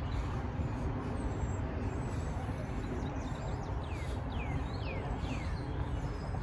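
Outdoor ambience: a steady low rumble like distant traffic, with a bird giving a quick run of four or five short falling chirps about four seconds in.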